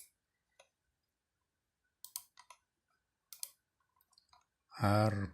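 Computer mouse clicking, a few quick clicks at a time with pauses between.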